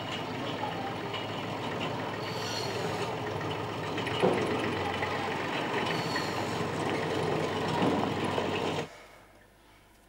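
Old tractor's engine running steadily as it drives along a paved road, growing slightly louder as it approaches. The sound stops abruptly near the end.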